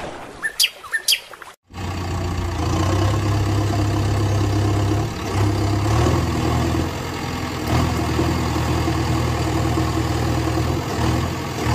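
A few bird chirps in the first second and a half, then after a sudden cut a steady engine idling sound, a low even hum with overtones that shifts slightly about halfway through.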